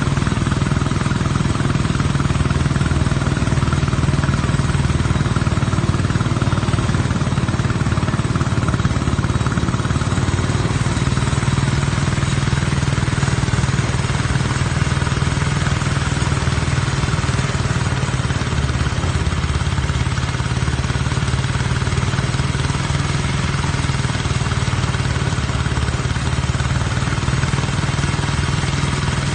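Engine of rice harvesting machinery running steadily at a constant speed, a loud, even low drone.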